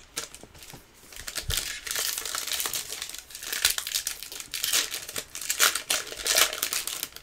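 Plastic packaging crinkling and rustling as it is handled, with irregular sharp crackles and a little tearing.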